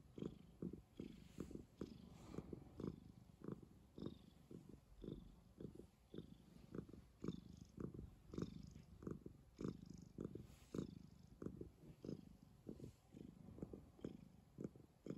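Domestic tabby cat purring right at the microphone, a low rhythmic rumble that swells and fades with each breath, two or three pulses a second. It is the purr of a contented cat.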